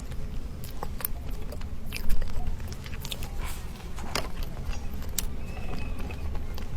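Close-miked eating of crisp pastries: scattered crunchy bites, clicks and crackles, the loudest about two seconds in, over a steady low hum.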